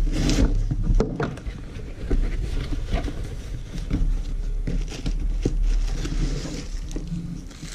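A shipping box being opened and its packing handled by hand: irregular scrapes, rustles and small knocks of cardboard and wrapping.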